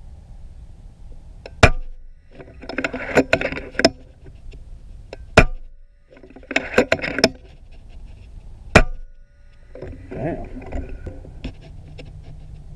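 FX Impact M3 .30 calibre PCP air rifle firing three shots a few seconds apart, each a single sharp crack. About a second after each shot comes a burst of clicking and rattling.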